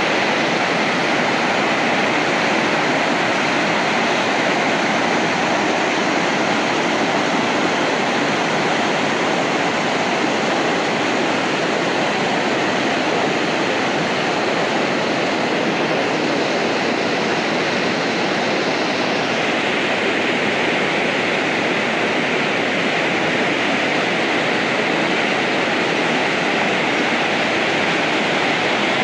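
Muddy river in flood, its fast water rushing in a loud, steady wash of noise.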